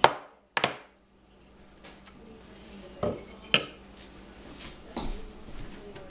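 Sharp clacks of small hard objects being handled and set down, about five in as many seconds, the first the loudest.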